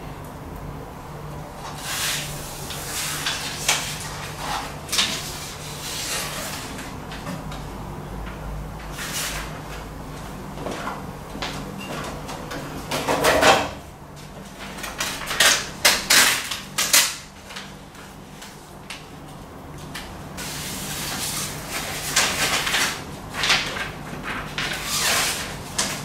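Irregular scraping, rubbing and knocking from hands working on a sliding glass door and its frame. A louder clatter about halfway through comes as the metal stepladder is moved aside.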